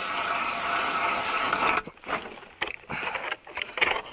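Hand-cranked ice auger grinding steadily through lake ice. The grinding stops suddenly about two seconds in, followed by a run of short scrapes and knocks as the auger is worked in the hole.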